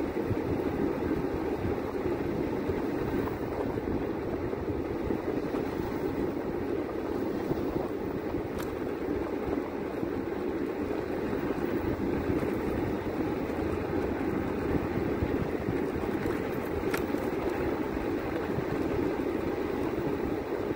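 Steady road and engine noise of a moving vehicle, an even low rumble with no change in pace.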